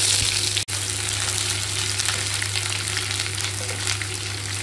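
Onions and shredded cabbage frying with pieces of fried pork in hot oil in a pan: a steady sizzle that swells as the vegetables go in. It cuts out for an instant less than a second in.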